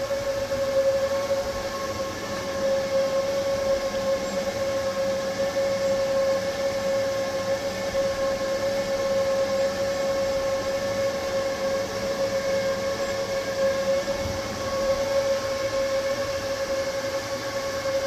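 EG4 6000XP solar inverters' cooling fans running flat out under near-overload: a steady, loud rushing hiss with a constant high whine.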